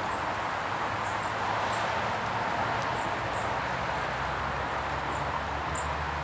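Small birds giving short, high calls, about eight scattered through, over a steady rushing background noise.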